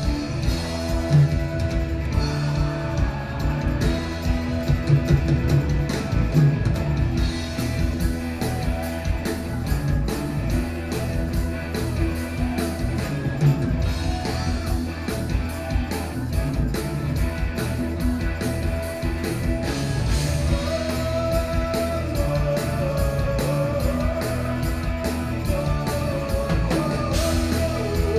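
A band playing rock-style music with drums, bass and guitar to a steady beat; a wavering lead line comes in about two-thirds of the way through.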